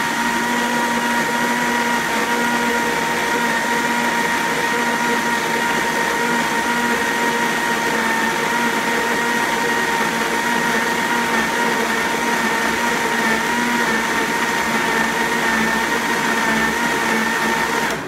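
Vitamix blender motor running steadily with a high whine over a whooshing churn as it blends a full jar of vegetables and fruit into juice. The motor cuts off at the very end.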